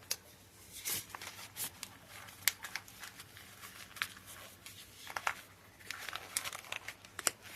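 Scattered soft rustles and light clicks of objects being handled, about one every second or so.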